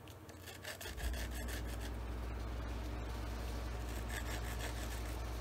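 Aluminium part rubbed lightly over 180-grit sandpaper to deburr its edges: a scratchy rasp, stroke after stroke. About a second in, a steady low machine hum starts and keeps running underneath.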